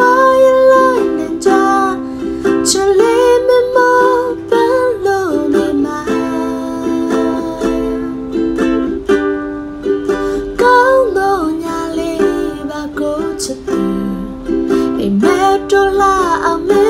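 A woman singing a slow Burmese song while strumming chords on a ukulele, her held sung notes sliding between pitches over the steady strum.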